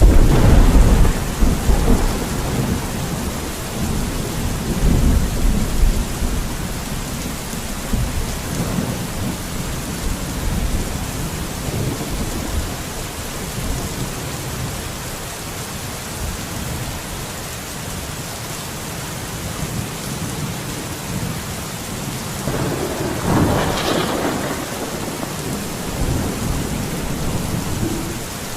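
Steady rain falling. A loud low rumble comes in the first few seconds, and another swell of sound comes about twenty-three seconds in.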